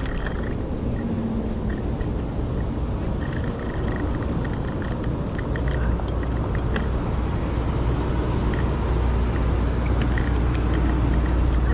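Steady rolling rumble of riding a Segway Ninebot Max electric kick scooter over pavement, with a deeper low rumble setting in about halfway through.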